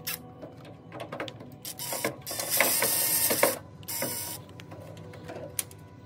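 Cordless drill-driver with a screwdriver bit spinning in two bursts, one of about a second and then a shorter one, taking out screws from a microwave oven's casing. Small clicks and handling knocks come before and between the bursts.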